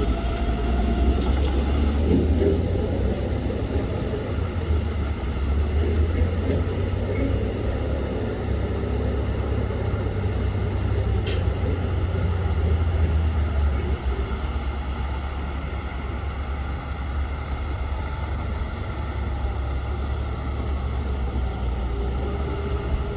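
Heavy diesel machinery running with a deep, steady rumble: the engines of a Shantui bulldozer and a Hyundai 25-ton dump truck working during a stuck-truck recovery. It is louder for about the first two-thirds, then settles a little lower, with one short click near the middle.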